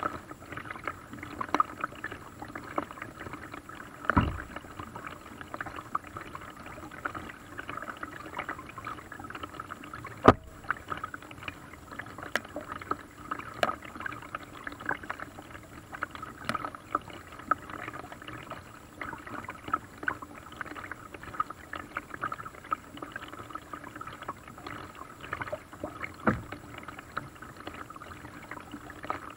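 Paddle strokes in lake water: a paddle dipping and splashing, water dripping and trickling, with a few sharp knocks, the loudest about ten seconds in.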